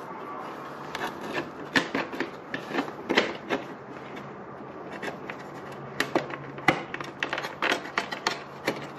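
Hands handling the Triumph Daytona 765's bodywork panels and fittings: scattered clicks, taps and rubbing of plastic parts, over a faint steady low hum.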